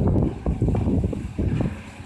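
Caterpillar 320C excavator's diesel engine working under load, an uneven low rumble with wind buffeting the microphone, dropping away near the end.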